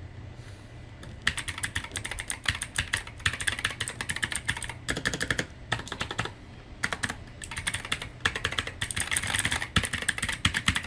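Typing on a Morganstar Gigaware K28 mechanical keyboard with clicky blue switches: rapid clicking keystrokes in runs broken by short pauses, starting about a second in.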